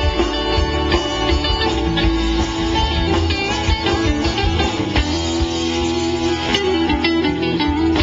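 Live rock band playing an instrumental passage: electric guitar lead over bass, strummed acoustic guitar and drums.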